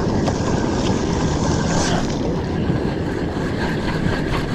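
Steady wind buffeting the microphone on open water, with faint scattered clicks from a spinning reel being wound.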